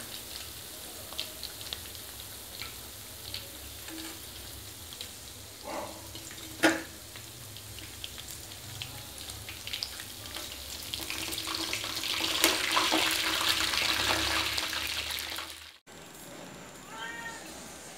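Chicken wings frying in hot oil in a wok, sizzling and crackling steadily, with a sharp metal clink of the slotted spoon against the pan about seven seconds in. The sizzle grows louder and denser from about eleven seconds, then cuts off suddenly near the end.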